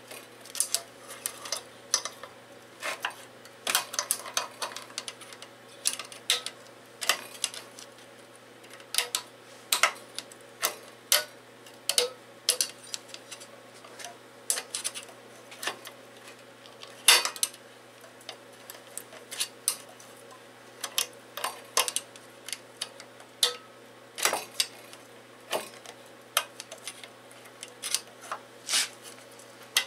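Metal tool clinking and scraping against the valve springs and retainers in the valve chamber of a small Briggs & Stratton engine block, in irregular sharp clicks, the loudest about 17 and 24 seconds in, over a faint steady hum.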